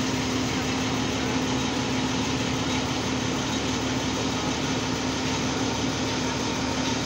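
Zoomlion truck-mounted mobile crane's diesel engine running steadily: a constant engine hum with one held tone and no change in speed.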